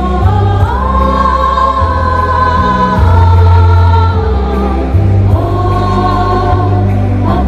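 Choir singing a Malayalam Christmas carol in long held notes, swelling on one sustained note in the middle, over steady low bass notes that change every second or two.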